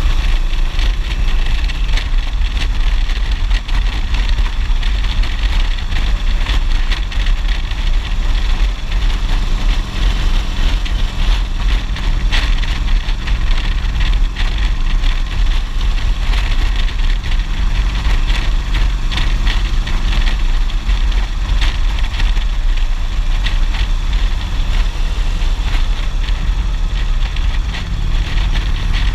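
Motorcycle engine running steadily at cruising speed, heard under heavy wind rumble and buffeting on the helmet-mounted microphone.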